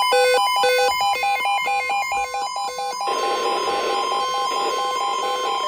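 Electronic tones beeping in a quick, repeating, melody-like pattern over a steady tone. About halfway through, a hiss joins them.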